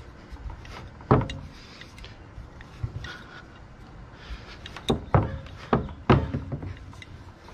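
A glass bottle used as a rolling pin, rolling over naan dough on a bamboo cutting board: a low rolling rumble with sharp knocks of glass against the wooden board, one about a second in and several close together around five to six seconds in.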